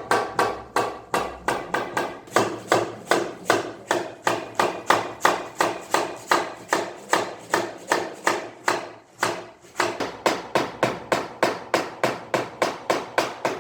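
Rapid, even hammering in woodworking, about three strikes a second, each a sharp knock with a short ring; it stops right at the end.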